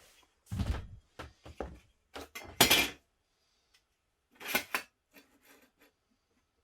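Irregular knocks and clatter of hard objects being handled and set down, about eight separate strikes. The loudest is a sharp knock a little before the middle, and a double knock follows over a second later.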